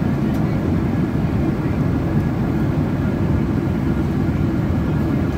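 Steady cabin noise inside a jet airliner in flight: an even low rumble from the engines and airflow with a fainter hiss above it.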